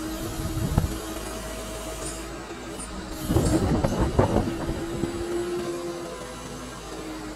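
Wheel loader's diesel engine running steadily, heard from inside the cab, with a single knock about a second in and a burst of clunks and clattering about three to four seconds in as the machine works.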